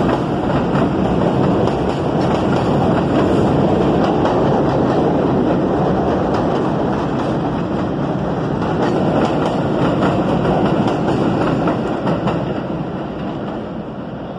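New York City subway train running close by on elevated steel track: a steady, loud rumble of wheels and running gear with repeated clacks over the rail joints. The sound fades near the end as the train pulls away.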